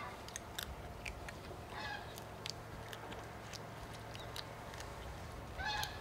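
A Eurasian otter chewing a catfish, with sharp clicking, crunching bites. Two short pitched otter calls come in, about two seconds in and again near the end.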